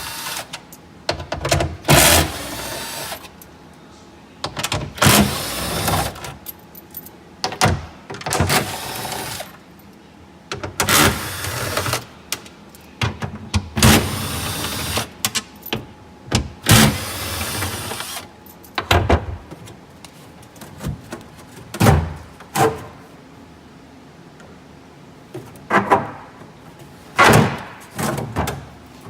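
Cordless screwdriver or drill whirring in repeated short bursts, each lasting up to about a second and a half, as fasteners are driven out one after another, with handling clatter between bursts.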